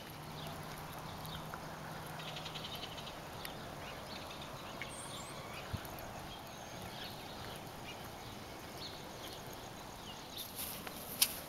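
Quiet outdoor ambience with faint scattered high chirps, and a few footsteps in the last second.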